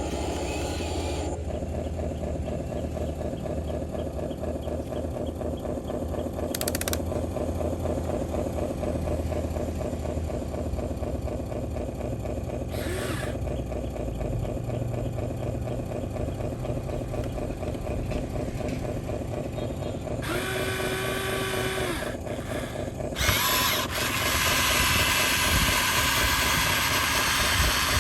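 Small electric motors and gearboxes of radio-controlled construction models whirring steadily. A brief higher whine comes in about twenty seconds in, then a louder gritty scraping noise from about twenty-three seconds on.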